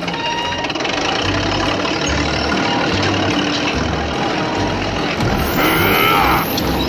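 Steady heavy-vehicle engine sound effect running over background music with a repeating bass line; about five and a half seconds in, a brief rising-and-falling tone sounds over it.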